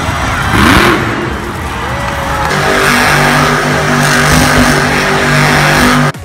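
Monster truck's supercharged V8 revving hard, with a loud rising burst about a second in, then held steady at high revs while the truck spins in the dirt. It cuts off suddenly at the very end.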